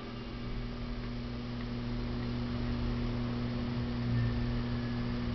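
Steady electrical mains hum with a low hiss, left on the recording once the music has stopped.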